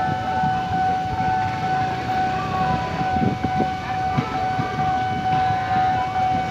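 Level-crossing alarm sounding one unbroken steady tone, the sign that it is malfunctioning ('error'). Under it, the low rumble of an approaching ex-JR 203 series electric commuter train.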